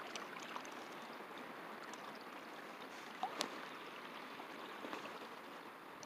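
Faint, steady outdoor hiss of wind and water at the lake's edge, with a short squeak and a sharp click a little over three seconds in.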